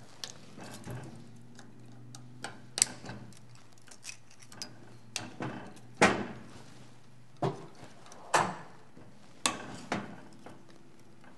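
Irregular clicks and taps of small metal parts as a gyroscope from aircraft navigation gear is handled and worked apart by hand, with a few louder knocks about six and eight seconds in.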